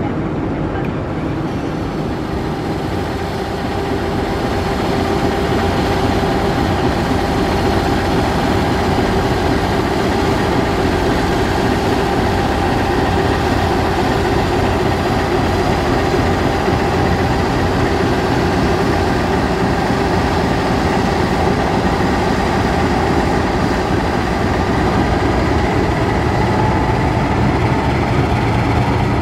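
Passenger coaches rolling past, then the steady drone of a KAI CC 206 diesel-electric locomotive's engine as it pulls away from a station with its train, a little louder from about five seconds in.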